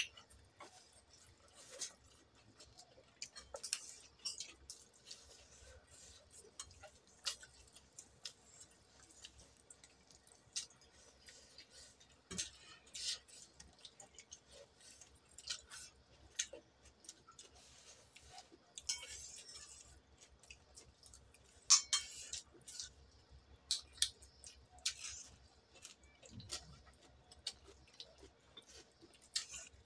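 Close-up eating sounds: wet chewing and lip-smacking on chicken curry and rice, eaten by hand, with soft clicks of fingers picking at food on the plate. The sounds come at irregular moments, with a louder smack about 22 seconds in.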